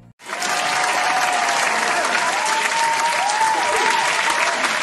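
Stock applause sound effect: a crowd clapping hard, cutting in suddenly, with a few whistles rising and falling over the clapping.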